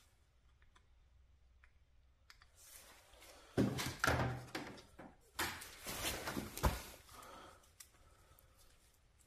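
A tire plug insertion tool is forced into a puncture in the tire tread to seat a sticky string plug, giving a cluster of heavy thunks and scraping about halfway through.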